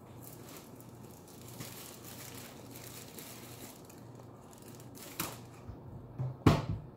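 A cockatoo crunching and chewing a snack held in its foot: a run of crackly bites and small clicks from its beak, then two sharp cracks near the end, the second the loudest.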